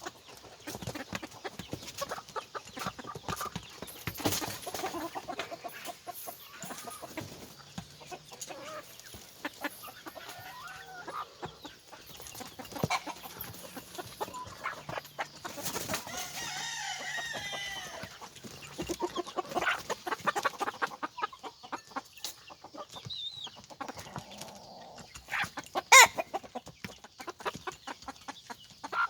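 Chickens clucking, with a rooster crowing about sixteen seconds in, among many short sharp clicks.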